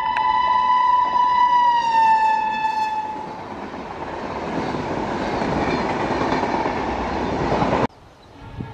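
Locomotive horn blowing one long, loud note that drops in pitch as the train passes, about two seconds in. It gives way to the steady rush and rattle of the coaches going by, which cuts off abruptly near the end.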